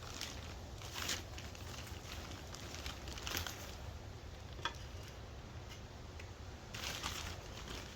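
Short, irregular rustling and scraping noises, about five in all, typical of hands and a tool working soil and plants in a garden bed, over a steady low rumble.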